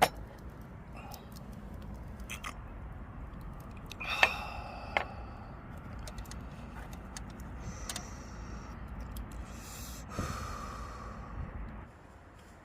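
Firewood burning in a small fire pit, crackling with scattered sharp pops, with a few brief whistling squeals about four, eight and ten seconds in.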